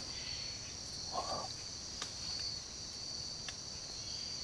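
Steady high-pitched chirring of an insect chorus, with a short faint sound about a second in and a few faint clicks.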